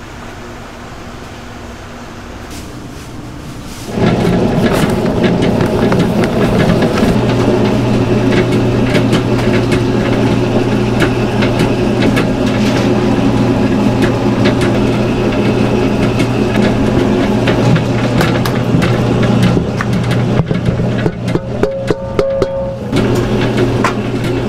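A kitchen machine's motor running steadily with clatter, starting abruptly about four seconds in; before that, only faint background ambience.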